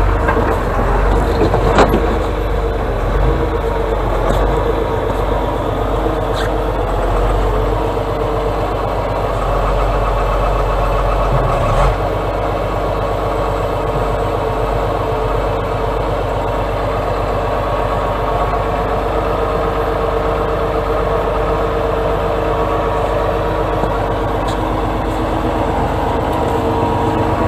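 Atlas 1602 hydraulic excavator's diesel engine running steadily as the machine drives, heard from the cab. A few short sharp knocks stand out, about two seconds in, around six seconds and around twelve seconds.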